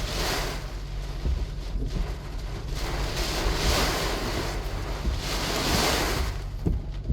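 Gusty hurricane wind blowing across the microphone, swelling and easing in gusts about two seconds apart. A few short low knocks come near the end.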